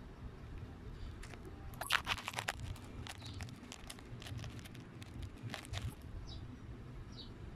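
Crinkling, clicking handling noise in two short bursts, about two seconds in and again near six seconds, with a couple of faint short high chirps near the end.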